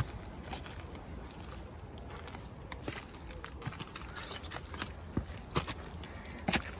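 Bicycle rattling and knocking as it rides over a bumpy, rutted track, with a steady low rumble underneath. The sharpest knock comes near the end.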